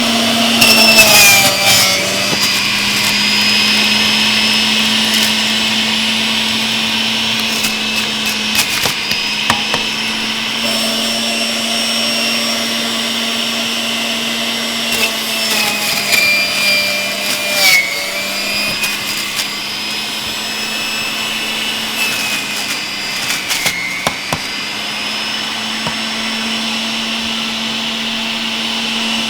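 Breville centrifugal juicer motor running with a steady hum. A few times its pitch sags and a loud grinding crunch breaks in as celery stalks are pushed down onto the spinning cutting disc.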